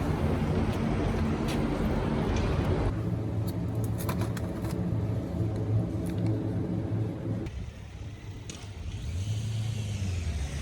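A motor vehicle running: a low engine hum with a rumble beneath it, which changes abruptly twice.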